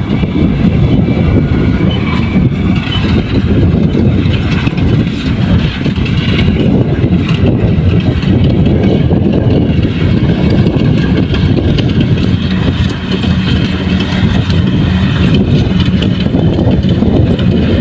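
Kubota rice combine harvester running steadily under load, a loud, continuous engine and machinery drone.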